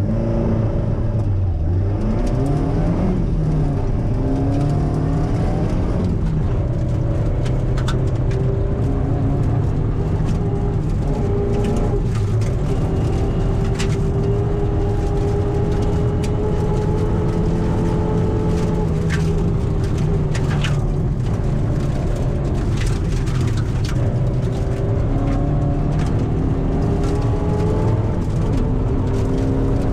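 Ford Escort competition car's engine heard from inside the cabin, pulling away hard near the start and then revving up through the gears, its pitch climbing and dropping with each shift. Sharp ticks come now and then over the engine.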